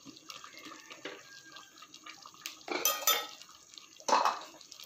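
Spatula stirring a chunky stew in a stainless steel pot: liquid sloshing, with the utensil scraping and knocking against the pot and two louder clattering bursts about three seconds in.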